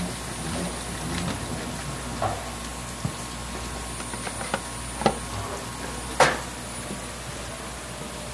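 A handful of short, sharp knocks and clicks of kitchen utensils on a work surface over steady background noise, the loudest about six seconds in.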